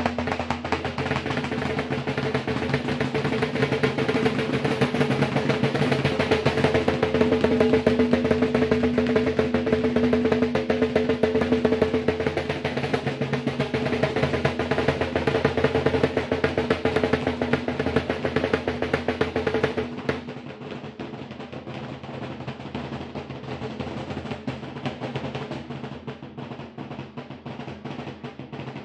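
Lambeg drum beaten with two thin canes in a fast, continuous rattle, with a steady ringing hum from the drum heads under the strokes. About twenty seconds in the drumming turns quieter and duller but keeps going.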